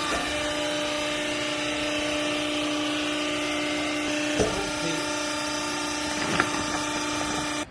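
Hydraulic power unit of a used-clothing baler running steadily: a motor and pump hum with a steady whine and mechanical noise, with two short knocks in the second half.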